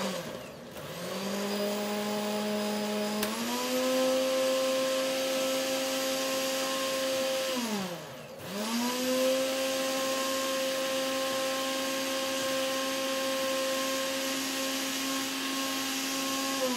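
Electric blender running, blending mint leaves with lemon juice and water. Its motor steps up in pitch about three seconds in, then winds down and stops briefly around eight seconds. It starts again, runs steadily, and winds down near the end.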